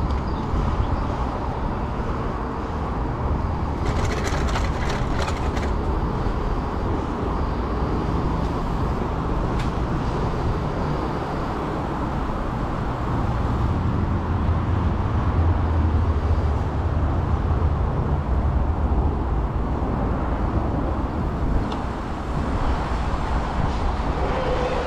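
Steady low rumbling noise of riding an electric hire bike along a paved path: wind and road noise on the rider's camera, swelling a little in the middle. A short burst of rattling clicks comes about four seconds in, with another single click later.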